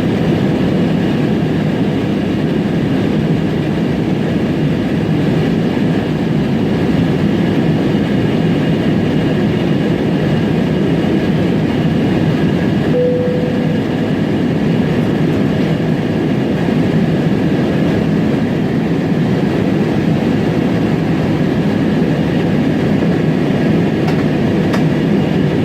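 Steady airliner cabin noise in flight: engine and airflow noise heard from inside the passenger cabin, with one brief tone about halfway through.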